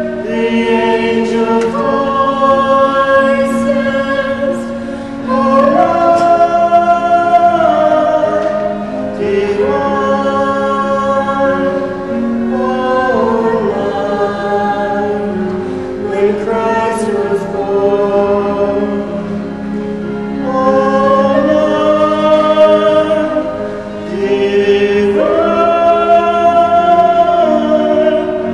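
Choir singing a slow Christmas carol in long, held chords, phrase after phrase.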